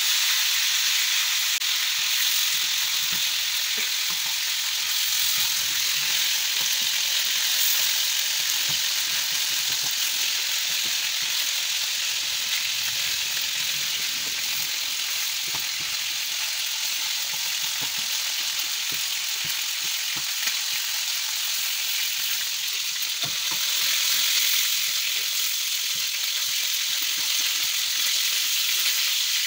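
Chicken pieces frying in hot oil in a pan: a steady sizzle with scattered small crackling pops. The chicken is being browned for colour, not yet cooked through.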